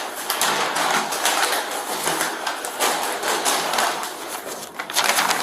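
Dense rustling and scraping of clothing close to the microphone, as garments are pulled off and handled.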